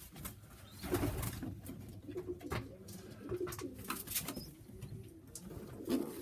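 Pigeons cooing in a loft: repeated low, rolling coos. A few sharp clicks of birds moving are heard, about one, two and a half, four and six seconds in.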